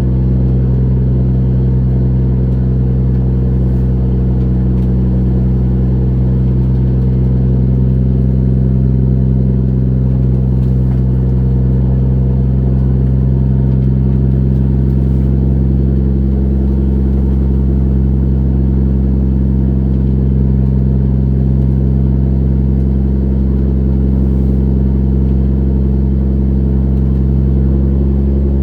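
A trawler's engine running steadily at a constant speed: a loud, low, even hum that holds one pitch.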